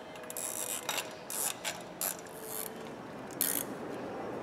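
Hand tools working on the engine's timing-belt drive: a series of about six short metallic clicking, ratchet-like bursts.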